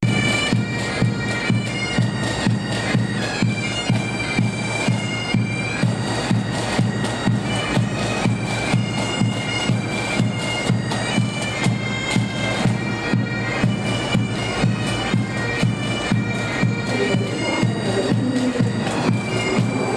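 Pipe band playing a march: bagpipe melody over a steady drone, with drums beating a regular marching time.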